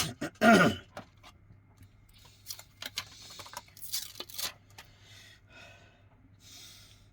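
A short vocal sound falling in pitch, like a sigh or throat noise, followed by scattered small clicks and brief rustles of small phone parts and tools being handled on the bench. A faint steady low hum runs underneath.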